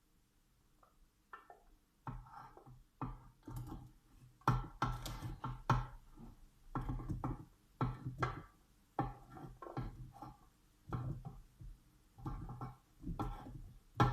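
Irregular knocks and scrapes of kitchen utensils handled against cookware, about one a second.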